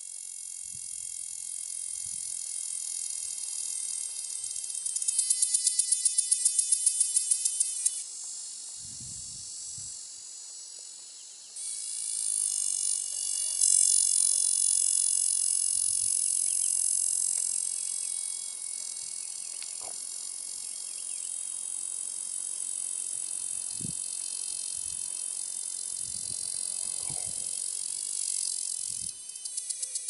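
Male cactus dodger cicada (Cacama valvata) singing its courtship call: a high, buzzing song broken by stretches of rapid pulsing, loudest a few seconds in.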